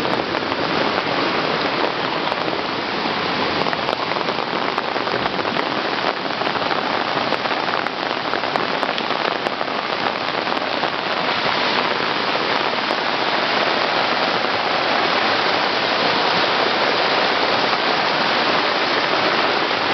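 Torrential rain falling on flooded ground and standing water: a dense, steady hiss with no let-up.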